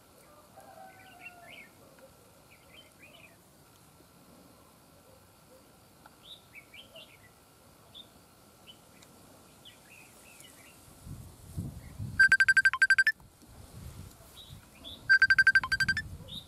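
Red-whiskered bulbuls calling: soft scattered chirps, then two loud bursts of rapid, buzzy chattering about twelve and fifteen seconds in, with low thuds underneath.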